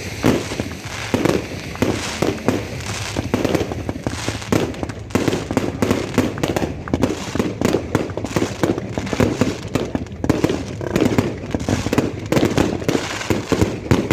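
Firework battery (cake) firing a rapid, unbroken barrage of launches and bursts, several bangs a second.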